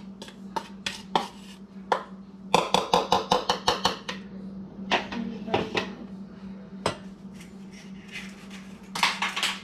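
Utensils clinking and knocking against a mixing bowl as flour is added to batter: scattered clinks, a fast run of taps lasting about a second and a half, and another quick cluster near the end.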